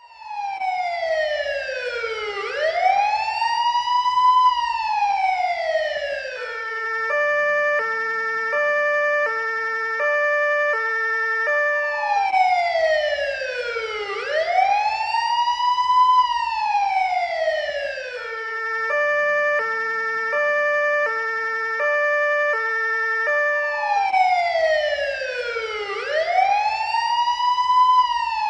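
Police car siren cycling through its modes: a slow wail gliding down and up, then a two-tone hi-lo alternating between two pitches about every half second. The pattern repeats about every 12 seconds.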